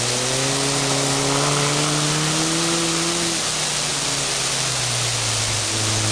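Half-track snow rail's motor running under load as it drives through snow, its pitch rising slowly over about three seconds and then dropping, over a steady hiss.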